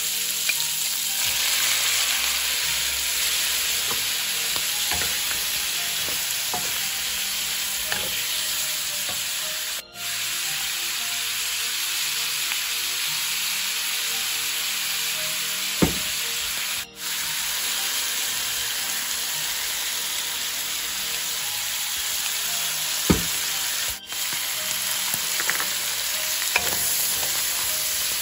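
Octopus pieces, then shrimp, celery and carrot, sizzling steadily as they stir-fry in hot oil in a wok, stirred with a wooden spatula. Two sharp knocks of the spatula against the pan stand out, and the sizzle cuts out briefly three times.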